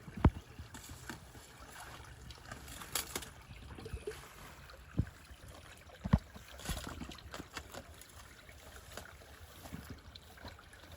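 River water trickling, with a few sharp knocks, one just after the start and two more around the middle, and scattered smaller clatters in between.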